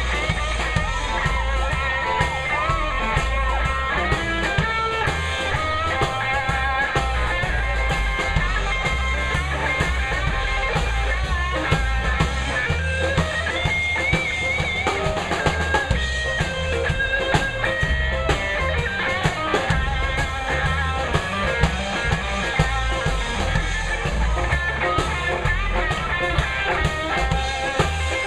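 Live rock-and-roll band playing an instrumental break: an electric guitar lead over a steady drum kit and bass.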